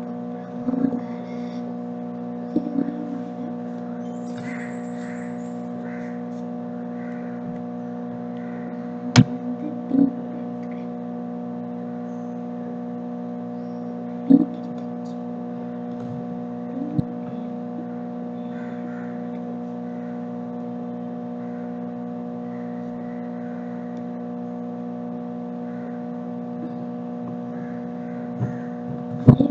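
A steady electrical hum made of several held tones, with a few short knocks and taps from a clay pot and paint jars being handled on a wooden table, the sharpest about a third and half of the way through and a cluster near the end.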